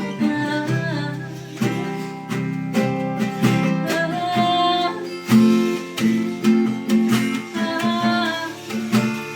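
Acoustic guitar strumming with djembe hand-drum strokes keeping a steady beat, an instrumental break in a song.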